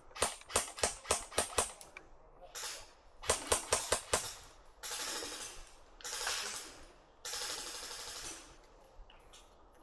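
Airsoft guns firing two quick strings of sharp shots, about five a second, the first about nine shots long and the second about six, followed by a few seconds of rustling hiss.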